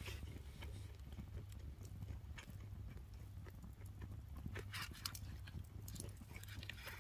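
Someone chewing and crunching a crisp grilled rice ball (yaki onigiri), with irregular crunchy clicks that bunch up about two-thirds of the way in and again near the end, over a low steady hum.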